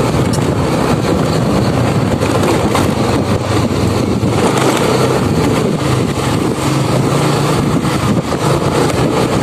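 Motorcycle engine running steadily at low cruising speed, heard from on board the bike with road and wind noise over it.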